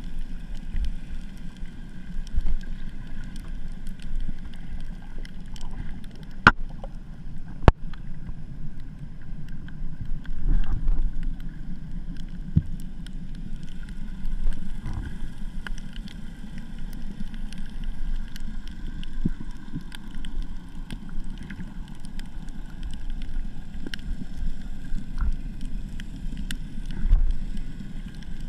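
Muffled underwater sound through an action camera's waterproof housing: a steady low rumble of water moving past the camera, with scattered sharp clicks throughout and two louder clicks about six and a half and seven and a half seconds in.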